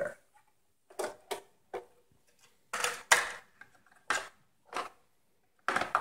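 Irregular plastic and metal clicks and knocks as hands handle a laptop's bottom cover and a 2.5-inch hard drive in its bay, with a short cluster of clatter about three seconds in.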